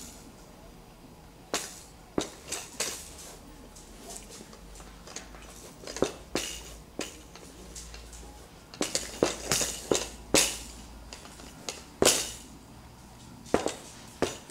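Irregular sharp clicks and knocks, about a dozen, some in quick clusters, from a baby playing with hard plastic toys on a foam play mat.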